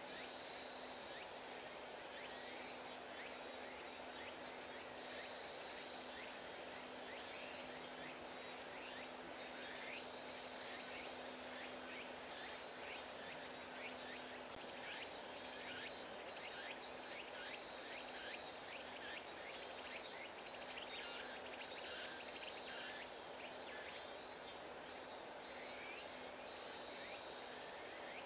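Faint outdoor ambience of insects chirping in short repeated trills, with many quick downward chirps and a steady low hum underneath that fades about halfway through.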